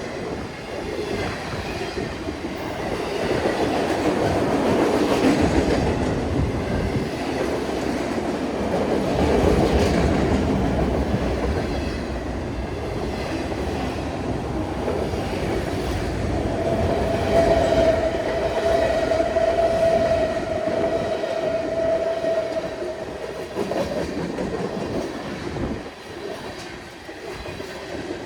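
CN freight train's cars rolling past on the rails, a continuous clattering rumble of steel wheels over the track. Past the middle a single steady tone sounds for about seven seconds.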